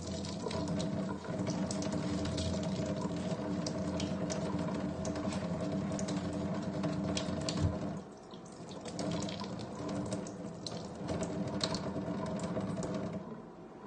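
Kitchen tap running into a stainless steel sink with a steady humming tone, while a knife is scrubbed with a sponge under the stream; small clicks and scrapes of the blade and sponge. About eight seconds in the sound drops and turns uneven.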